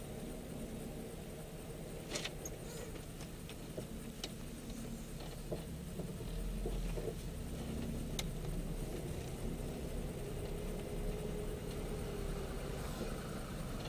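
Suzuki Samurai's engine idling, heard from inside the cabin, then running a little louder from about halfway as it creeps forward in slow traffic. A few light clicks and rattles from the cabin.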